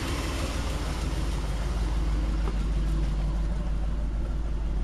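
1987 Chevrolet Suburban's 454 big-block V8 idling steadily, a constant low rumble.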